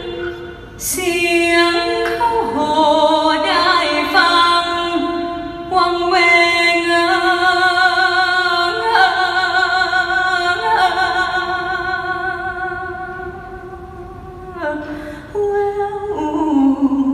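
A woman singing a slow melody live into a handheld microphone through an arena sound system, in long held notes with vibrato.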